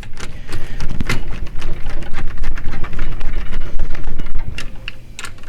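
Dense, irregular clicking and rattling of a screwdriver and small metal parts being handled while a screw is fitted into a pinball mechanism.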